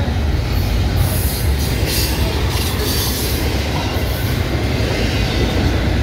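Loaded double-stack container cars of a freight train rolling past close by: a steady rumble of steel wheels on rail, with a few short bursts of high hiss in the first half.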